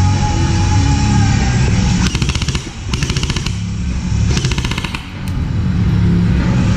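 Three short full-auto bursts from an airsoft electric gun, each a rapid clatter of shots lasting about half a second, the first about two seconds in, over loud rock music that plays throughout.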